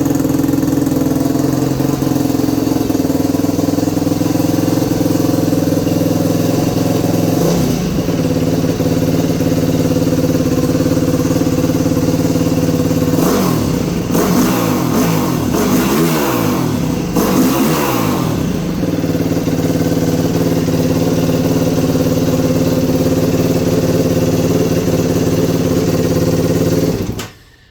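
2021 Yamaha YFZ450R SE quad's single-cylinder four-stroke engine idling with its new Pro Design intake kit. About halfway through it is revved with a run of quick throttle blips, then it settles back to idle and is shut off near the end.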